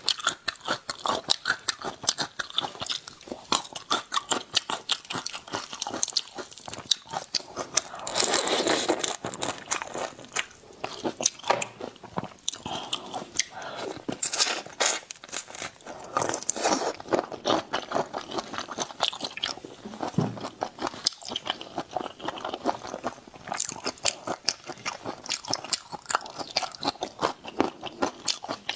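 Close-miked eating: biting into and chewing raw marinated prawns, a dense run of sharp crunches and wet clicks, with a longer, louder stretch about eight seconds in.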